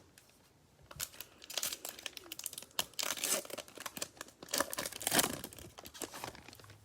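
A foil trading-card pack wrapper being torn open and crinkled by hand, in a dense run of sharp crackles lasting about five seconds.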